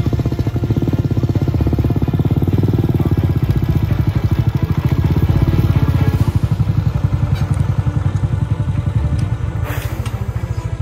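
Motor scooter's engine running under load with a fast, even pulsing as it labours up a rough, muddy road. There is a short burst of noise near the end.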